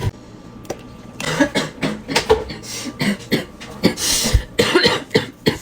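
A woman with bronchitis in a coughing fit: a rapid run of short, congested coughs that starts about a second in, the strongest a little after the middle.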